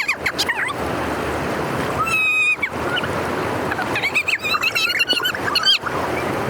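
Water rushing steadily through a drainage channel, with high animal calls over it: one held call about two seconds in, then a quick run of short chirping calls a little later.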